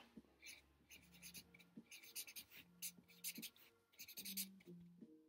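Staedtler Lumocolor felt-tip marker writing on a spiral notepad's paper: faint, short scratching strokes of the tip as a few handwritten words are written.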